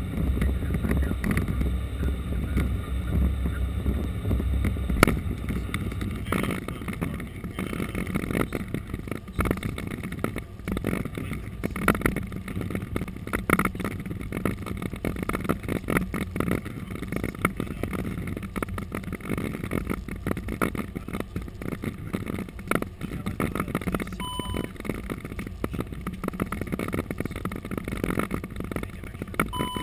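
Airbus A330-200 cockpit noise on the landing roll: a steady rumble of the airliner rolling down the runway, with dense rattling and a heavier low rumble in the first few seconds. Two brief beeps sound near the end.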